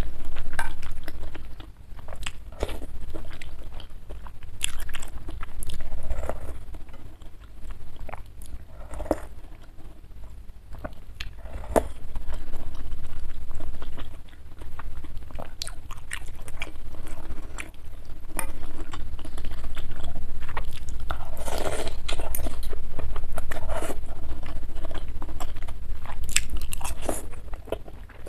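Close-miked chewing of bakso meatball and beef tendon from spicy soup: wet mouth clicks and squelches at an uneven pace, over a steady low hum.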